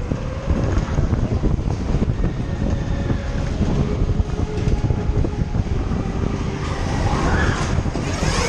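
Space Mountain indoor roller coaster running along its track in the dark: a steady, loud rumble and rattle of the wheels on the rails, with a rush of hiss swelling near the end.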